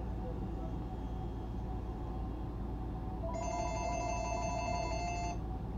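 A telephone rings once for about two seconds, starting a little past halfway through, with a steady electronic tone made of several pitches.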